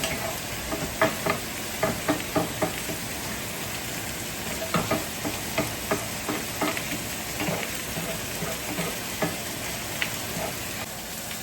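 Onions sizzling in butter in a pan while a utensil stirs them, with irregular clicks and scrapes against the pan. The clicking stops near the end, leaving the steady sizzle.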